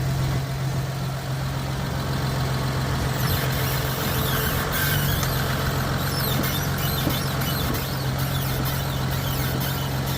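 Car's steering squeaking while it is turned: repeated short high squeaks that rise and fall in pitch start about three seconds in. Underneath, the engine runs at a steady low hum.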